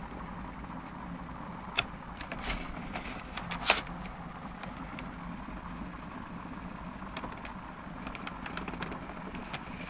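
Handling noise from a cardboard remote-control box: a few sharp knocks and taps as it is moved and set on a table, the loudest about three and a half seconds in, then fainter clicks of fingers on the box near the end, over a steady low background noise.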